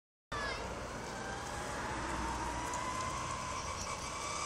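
Moped approaching, its engine whine rising slowly in pitch over a steady wash of road traffic noise.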